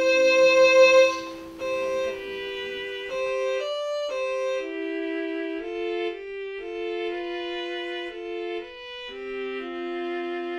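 Slow instrumental music: a held chord gives way about a second and a half in to a gentle melody of long notes, with a second lower line moving beneath it.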